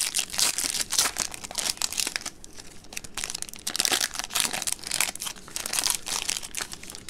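Foil wrapper of a Topps Finest trading-card pack crinkling and tearing as it is ripped open and peeled back from the cards, in a dense run of crackles.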